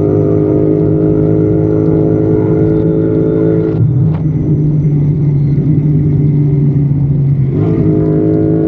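Royal Enfield Continental GT 650's 648 cc parallel-twin engine running through its exhaust at steady revs. The note drops about four seconds in, then climbs back up near the end as the throttle is opened again.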